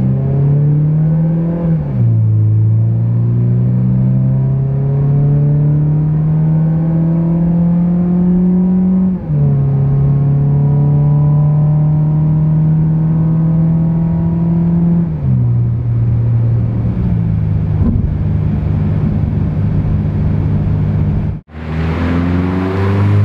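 Mazda 3's four-cylinder engine through an aFe Takeda 2-1/2-inch 304 stainless axle-back exhaust, pulling under acceleration: the exhaust note climbs, drops with each of three upshifts and then holds steady. Near the end it breaks off briefly and the car is heard accelerating away again.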